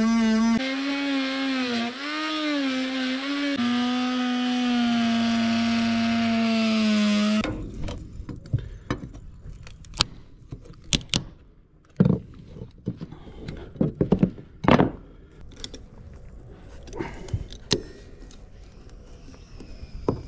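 A Ryobi ONE+ cordless power tool buzzing as it cuts into the boat's old wooden trim, its pitch dipping and wobbling as it bogs under load, then cutting off about seven seconds in. After it stops come scraping and a series of sharp knocks as the loosened wooden strip is worked off by hand.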